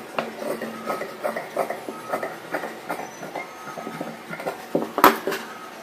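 Tailor's shears snipping through blouse lining fabric, a quick run of crisp cuts at several snips a second, with one sharper, louder click about five seconds in.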